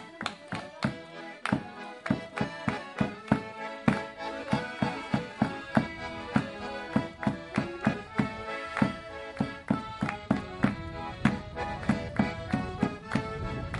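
Accordion playing a lively folk dance tune, with a drum and handclaps keeping a steady beat of about three strokes a second.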